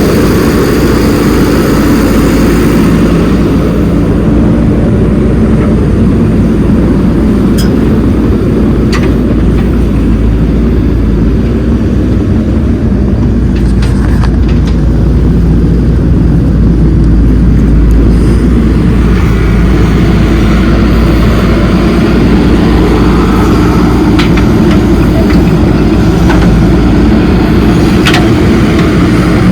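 Heavy diesel machinery engine running steadily, with a few short clanks and knocks scattered through.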